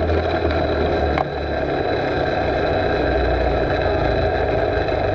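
Mini bike's small engine running steadily while riding along, dipping briefly about a second in.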